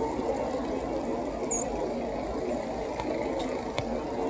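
Steady hum of city traffic and engines, with a few faint ticks about three seconds in.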